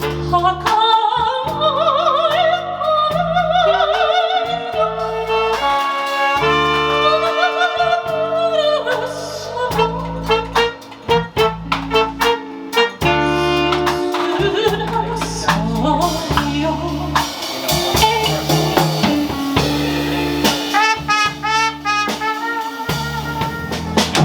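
Live Dixieland jazz band playing an instrumental passage, with brass horns playing wavering melody lines over a steady bass line and drums.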